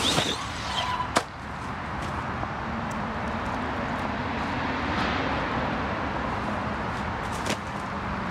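1/8-scale ARRMA Typhon brushless RC buggy: a short rising motor whine right at the start, then a single sharp knock about a second in, and a smaller knock near the end, over steady outdoor noise.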